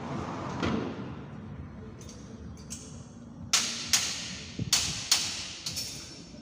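Sharp knocks and clanks from mechanic's work at the raised front wheel, about five strikes in the second half, mostly in pairs less than half a second apart.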